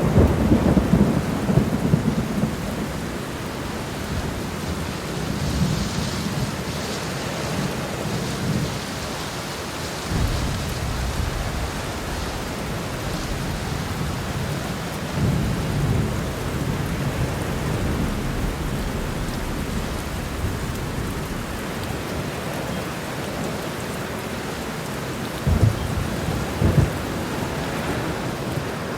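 Heavy rain falling steadily with repeated rolls of thunder rumbling low, the strongest right at the start and a sharper crack of thunder about 26 seconds in.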